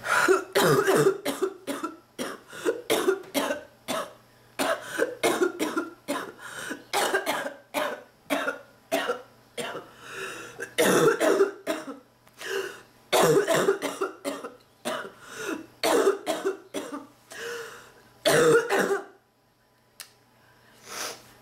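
A sick person's long fit of harsh, barking coughs, about two a second, that breaks off about nineteen seconds in, followed by a couple of faint coughs near the end.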